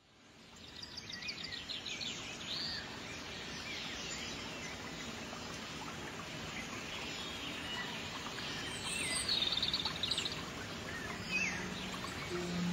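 Several birds chirping and trilling over a steady background hiss of outdoor ambience, fading in from silence at the start. Low musical tones come in faintly near the end.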